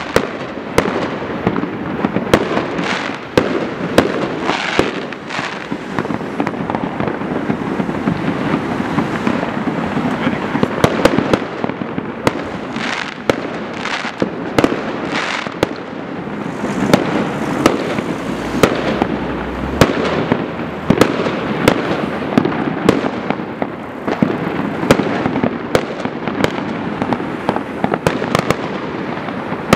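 New Year's fireworks and firecrackers going off without a break: a dense crackle of bursts with frequent sharp bangs, several a second.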